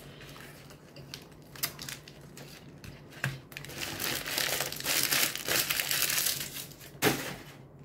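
Paper sandwich wrapper crinkling and rustling while a man bites into and chews a fried chicken sandwich, with a few sharp clicks. The rustling grows louder about four seconds in.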